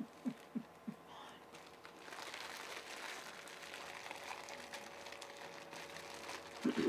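Plastic snack wrappers crinkling and crackling as they are chewed and worked with the mouth, steady from about two seconds in. A few short muffled vocal sounds come in the first second, and a brief voice sound at the very end.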